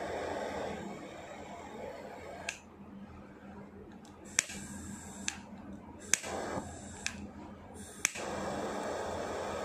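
Butane lighter flame hissing against a self-igniting charcoal disk. The hiss weakens and stops, then the lighter's igniter clicks about six times, roughly once a second. The flame catches again about eight seconds in and the hiss resumes.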